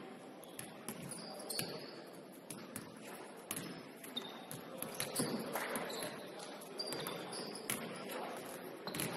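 Several basketballs bouncing on a hardwood gym floor, an irregular patter of sharp thuds from players dribbling and shooting at the same time, echoing in the large hall.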